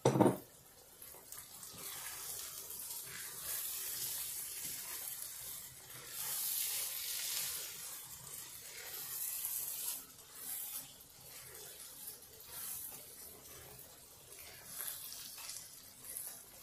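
Masala frying in oil in a pan while being stirred with a spatula: a steady sizzling hiss that swells louder about six to ten seconds in. A sharp knock comes at the very start.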